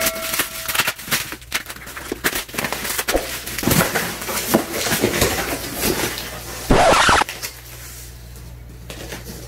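Plastic stretch wrap being torn off a cardboard shipping box, then the box's flaps being pulled open, with crinkling and rustling of wrap, cardboard and packing material. One louder rip comes about two-thirds of the way in.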